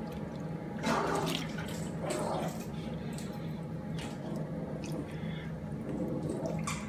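Water splashing and dripping in a few separate short splashes as a doll's hair is worked in hand-hot soapy water, over a steady low hum.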